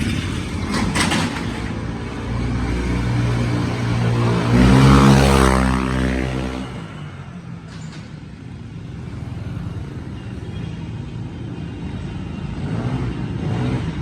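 Honda SH scooter engine revved hard on a test run. Its pitch climbs to a peak about five seconds in, then falls away and drops off sharply. It runs on more quietly, rising a little again near the end.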